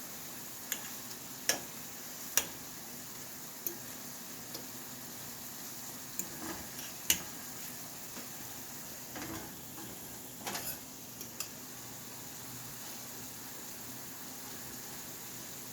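Pieces of deer meat sizzling in butter and olive oil in a frying pan, a steady hiss broken by several sharp clinks of a utensil against the pan as the pieces are turned.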